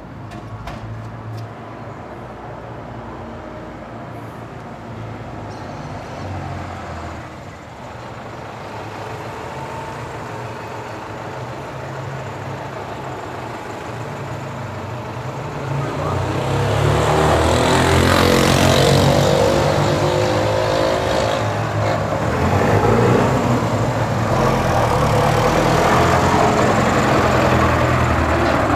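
Street traffic: a motor vehicle's engine grows loud and passes close by from a little past halfway, its pitch shifting as it goes, and the traffic noise stays loud afterward.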